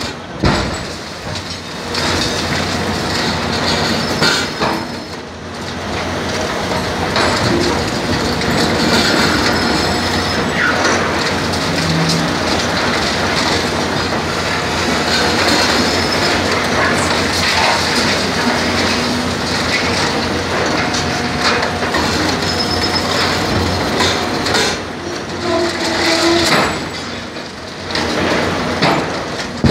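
Trevi Benne FR 28P hydraulic crushing jaws on an excavator crushing reinforced concrete: continuous cracking and grinding of concrete, with short high metallic squeals of rebar and steel jaws, over the steady hum of the excavator running.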